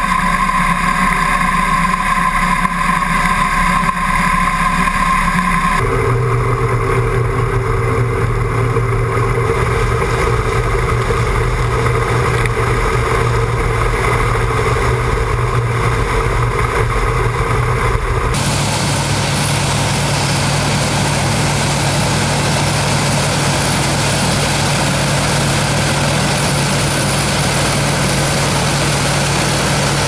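Combine harvester running while harvesting corn: a steady mechanical hum from its corn head and engine. The sound changes abruptly about 6 and 18 seconds in, and the last part is a rougher, noisier rush over a low steady engine tone.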